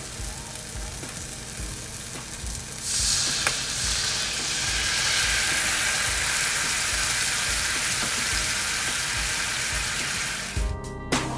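A sauce of soy sauce, mirin and sake hits a hot frying pan around chicken rolls with a sudden loud sizzle about three seconds in. The sizzle carries on steadily as the sauce bubbles in the pan.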